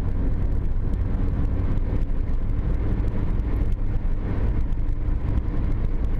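Steady engine and tyre noise inside a Nissan Versa's cabin, cruising at highway speed: an even low rumble.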